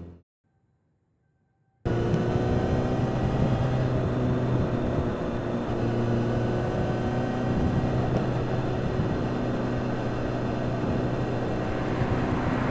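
Near silence for about two seconds, then a Kawasaki Z900RS's 948 cc inline-four engine and exhaust cut in suddenly and run steadily at an even pitch while the bike cruises.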